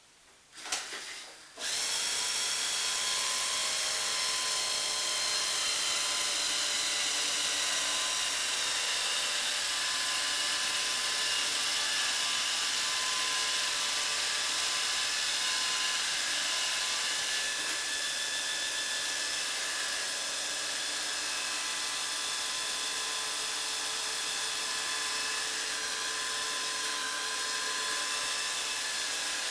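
Samsung Tango robot vacuum cleaner starting up about two seconds in, then running steadily: an even motor whir with a high whine.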